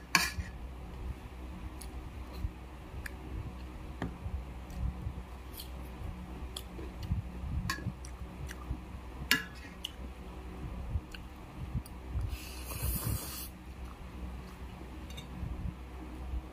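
A person eating at close range: chewing and breathing, a spoon clicking now and then against the bowl, and a bite into a raw cucumber slice near the end, with a brief hiss about three-quarters of the way through.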